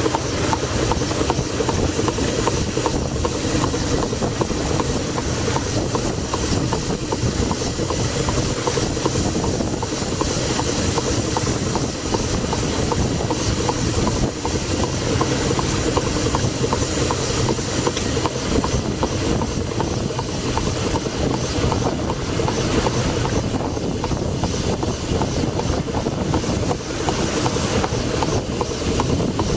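1902 Toledo steam carriage engine running steadily in a steamboat, with a fast, even beat.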